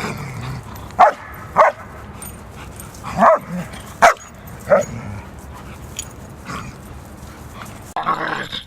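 A dog barking and yipping: about five or six short, sharp barks at uneven intervals.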